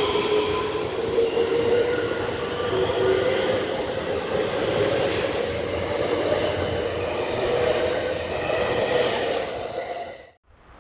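JR Kobe Line train running through the station, a steady rail rumble with a high whine that drifts slowly up and down in pitch. The sound cuts off suddenly near the end.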